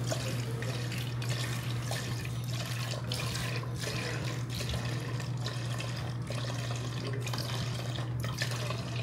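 Liquid pouring and splashing steadily, with a constant low hum underneath.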